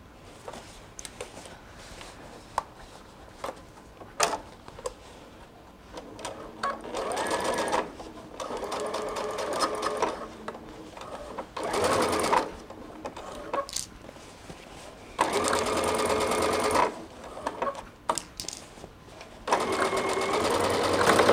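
Sewing machine stitching a seam through the bag's layers in stop-start runs of one to three seconds, about four runs in all, starting about six seconds in. Scattered clicks and knocks fill the quieter pauses.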